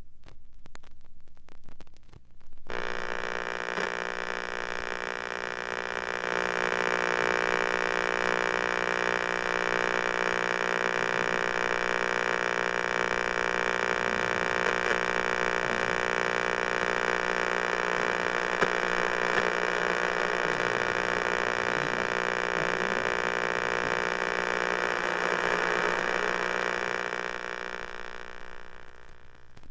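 A steady hum made of many fixed tones. It begins about three seconds in, after a short fluttering start, holds even throughout, and fades away near the end.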